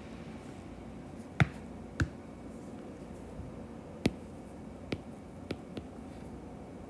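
Stylus tip tapping on an iPad's glass screen: about six sharp, short taps at irregular intervals, the loudest about a second and a half in and again about four seconds in, over faint room hiss.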